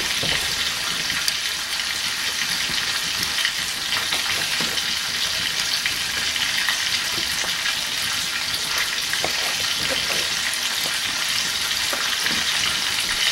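Steady sizzling hiss with small crackles from a wood fire in an open hearth with cookware set over it, and a few soft taps of a knife on a wooden cutting board.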